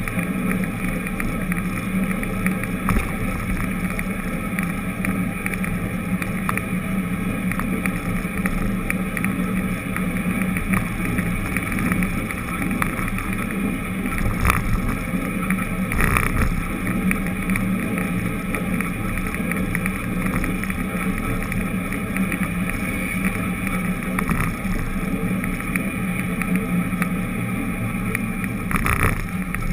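A vehicle driving steadily along a street, heard from a camera mounted low on it: a steady engine hum with road and wind noise, and a few knocks from bumps in the road, one near the end.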